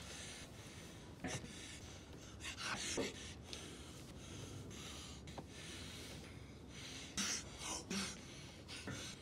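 A man breathing in short, sharp breaths through the mouth, about six of them, bunched about a second to three seconds in and again near the end, over a faint steady hiss of room tone.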